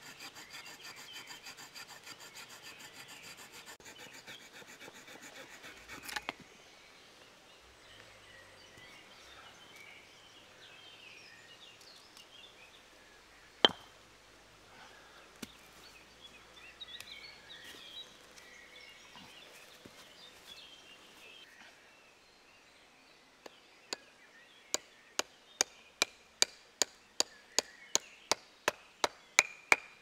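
Swiss Army knife saw blade cutting hazel wood with fast, even strokes for about six seconds. Later comes one sharp knock. Near the end, a wooden baton strikes the back of the knife about twice a second, splitting a hazel branch lengthwise.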